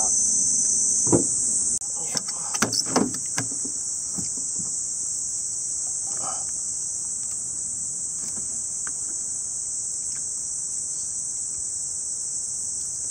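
Insects chirring steadily in an even, high-pitched drone, with a few sharp knocks and clatter about one to three and a half seconds in.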